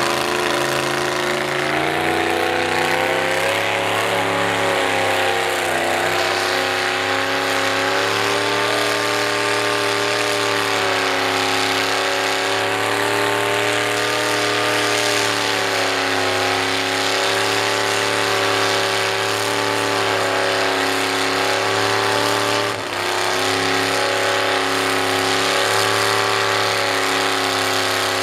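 Cadillac V8 of an old International pickup mud truck running hard at high revs under load in deep mud, its pitch wavering up and down, with a brief drop in loudness about 23 seconds in.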